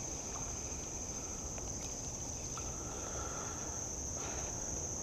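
Insects chirring in one steady high-pitched drone, over a low background rumble.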